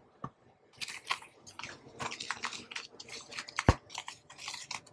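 Damp iodized salt being stirred and scraped with a metal utensil in a plastic tub: a run of gritty crunching and scraping, with one sharp knock about two-thirds of the way through. The salt is wetted with just a little water so that it holds together.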